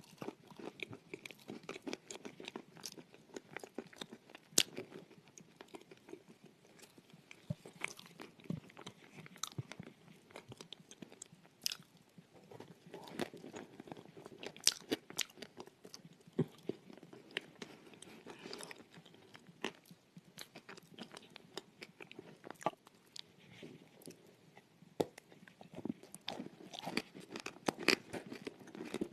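Close-miked chewing of a creamy chalk paste: irregular crunches and sharp clicks in the mouth, over and over.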